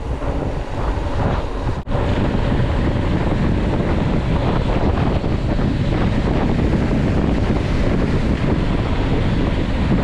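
Wind buffeting the microphone of a moving trail rider, a loud steady rush of noise with a brief dropout about two seconds in.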